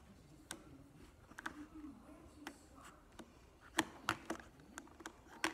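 Scattered light clicks and knocks from a TV remote and the phone being handled, the two sharpest a little under four seconds in, over a faint low hum.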